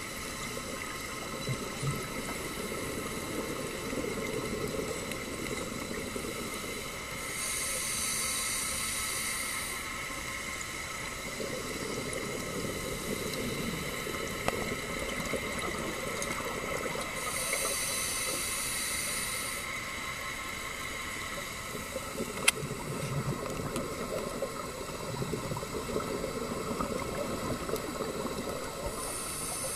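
Scuba regulator breathing heard underwater: a hissing inhalation about every ten seconds, each followed by exhaled bubbles gurgling out. A single sharp click about 22 seconds in.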